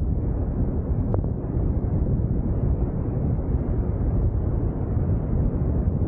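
Wind buffeting the camera's microphone: a steady, low, rumbling noise.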